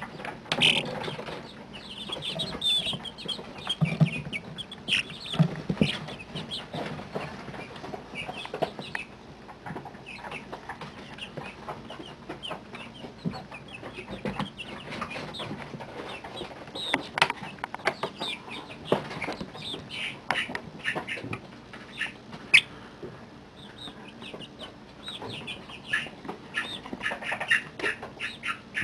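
A brooder full of 30-day-old chicks peeping and chirping, a constant scatter of short calls from many birds, with sharp clicks here and there.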